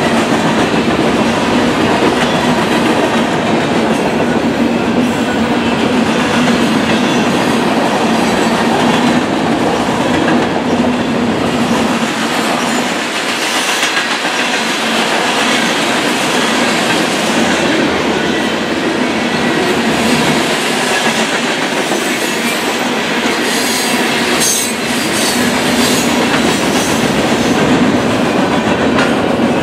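Freight train cars rolling past at close range: a loud, steady rumble and rattle of steel wheels on the rails, with a few sharp high sounds in the last few seconds.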